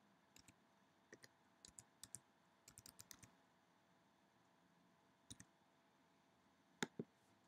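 Faint computer keyboard typing: scattered keystrokes in small clusters, then two louder clicks near the end.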